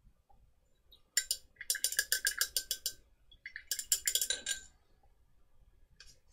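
Two bursts of rapid, light clinking of small hard objects, about two seconds and then about one second long.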